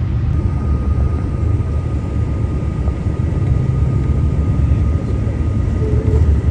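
Inside a moving RTD commuter bus: steady low rumble of the engine and road, with a faint steady high whine.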